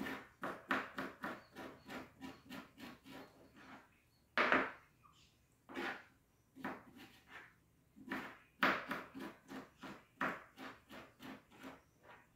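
Kitchen knife chopping on a cutting board in quick runs of about four strokes a second, with a louder single knock about four and a half seconds in.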